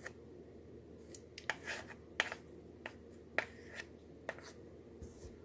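Spoon scraping and knocking against a measuring cup while scooping out peanut butter: a series of sharp clicks and short scrapes, the loudest about two seconds in.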